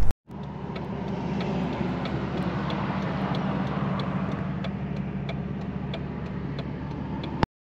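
Jeep Cherokee XJ driving, a steady engine hum with road noise and faint light ticks over it; it cuts off suddenly near the end.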